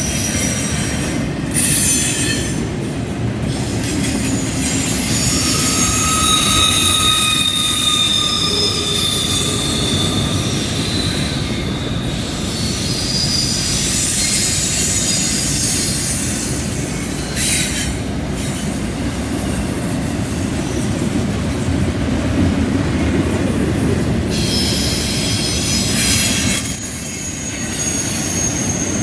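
Freight train of double-stack intermodal well cars rolling past on a curve, its wheels squealing on the rails in thin high-pitched tones that come and go over a steady low rumble. A brief louder noise stands out near the end.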